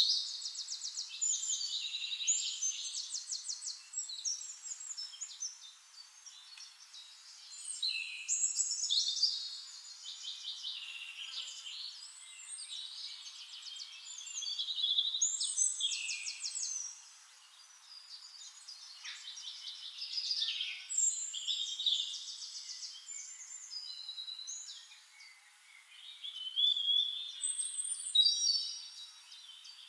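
Several songbirds singing, with overlapping high-pitched phrases of fast trills and whistled notes that come and go every few seconds.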